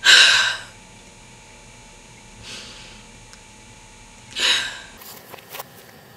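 A woman crying and sniffing: a sharp sniff right at the start, a faint one about two and a half seconds in, and another sharp sniff about four and a half seconds in. A few faint clicks follow near the end.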